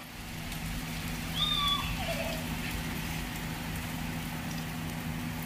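Steady rain falling, an even hiss, with a low hum under it. A short high call with a sliding pitch cuts through the rain about a second and a half in.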